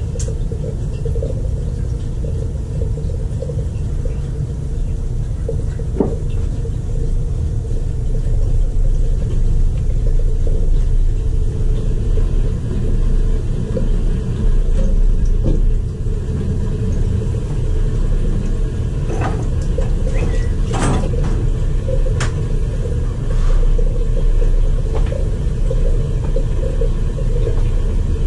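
Crown hot-water boiler running on a call for heat: a steady low rumble from the burner and flue, with a few scattered clicks and ticks.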